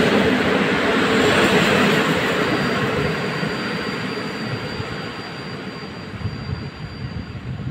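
Passenger train carriages rolling away on the rails, the rumble fading as the last car draws off into the distance, with a faint steady high whine over it from a few seconds in.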